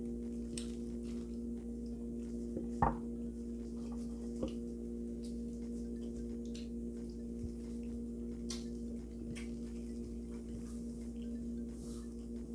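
Steady electrical hum made of several held tones, with soft clicks and taps from eating at the table and a light knock about three seconds in.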